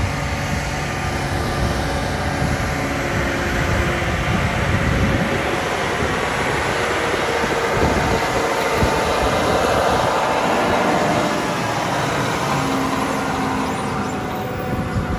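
Large farm harvest machinery running steadily under load: a continuous engine drone mixed with a dense mechanical roar.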